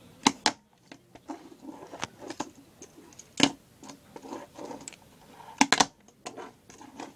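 Tech Deck fingerboard on a hard tabletop: several sharp clicks as the board is popped and lands, with faint scraping between them and a quick run of clicks later on.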